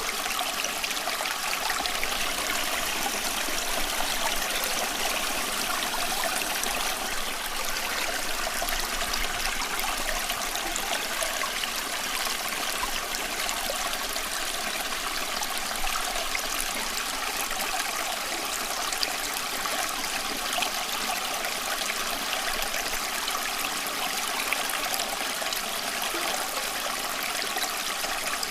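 Running water flowing steadily, an even trickling and splashing hiss that does not change.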